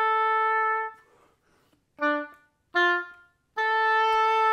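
Oboe playing: a long held note stops about a second in, and after a short pause come two brief, lower notes before the long held note sounds again near the end.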